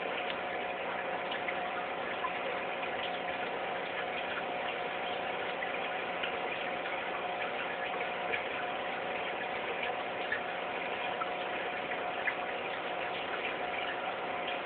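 Aquarium pump running with a steady hum, over bubbling water with small irregular ticks.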